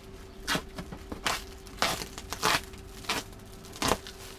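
Plastic wrapping on a parcel being cut and torn open with a blunt knife, in about six short bursts of crinkling and tearing.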